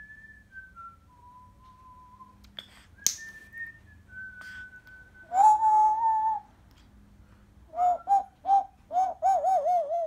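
African grey parrot whistling a string of clear held notes that step between pitches, then giving one loud pitched call about five seconds in and a quick run of short up-and-down calls near the end.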